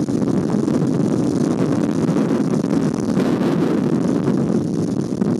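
Heavy rainstorm on an outdoor nest-cam microphone: a loud, steady rushing of rain and wind.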